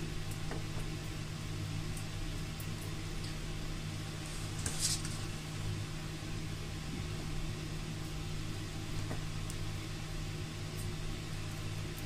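The heated tip of a plastic pipe welding machine melting a hole through a plastic dish: a faint sizzle over a steady low hum, with a short sharp hiss about five seconds in.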